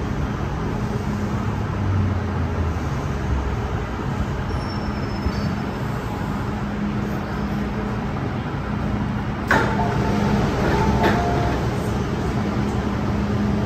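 MTR M-Train electric multiple unit running between stations: steady running noise with a constant low hum. About two-thirds of the way through, the noise suddenly gets louder and a few short tones sound.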